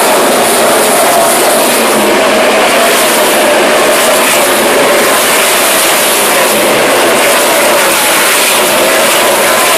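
NASCAR Cup stock cars racing past at speed: the V8 engines of the field make a continuous, very loud drone whose pitch wavers slightly as cars come and go.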